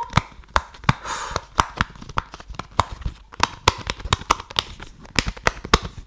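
Square silicone pop-it fidget toy having its bubbles pressed in, one after another, giving a run of sharp, irregular pops several times a second.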